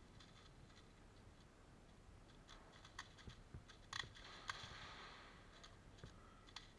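Near silence: faint room tone with a few scattered sharp clicks, and a soft hiss about four seconds in.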